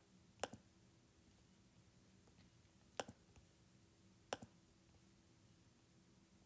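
Near silence with a faint steady hum, broken by three short, sharp clicks spaced one to two and a half seconds apart: taps on the tablet screen as interface buttons are pressed.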